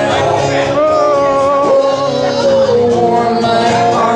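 Live bar music: a man singing with a guitar, the voice holding long notes over a steady accompaniment.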